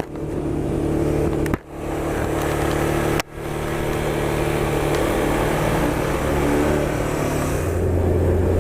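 Suzuki RV125 VanVan's single-cylinder four-stroke engine running under way, with wind noise. The sound cuts out sharply and briefly twice, about one and a half and three seconds in, and the engine note drops lower near the end.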